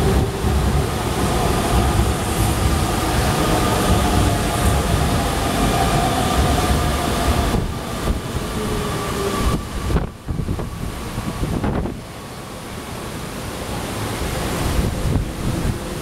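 Hanshin Railway express train pulling into the platform and slowing to a stop, its motors whining and gradually falling in pitch, over a steady hiss of heavy rain and wind on the microphone.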